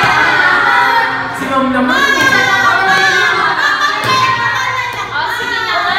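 A group of students singing together, their voices held and gliding in pitch, with an abrupt change in the sound about four seconds in.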